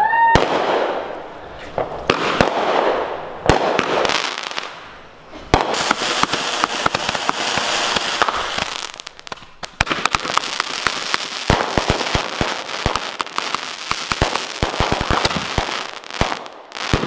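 Consumer fireworks going off: several loud bangs from aerial shells, then, from about five seconds in, a long stretch of dense crackling and rapid pops.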